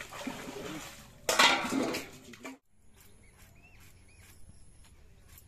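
Pond water splashing and sloshing as metal dishes are rinsed by hand, with a loud splash about a second and a half in. It cuts off suddenly just past halfway, and birds then chirp over faint ticks of a knife cutting snake gourd on a wooden board.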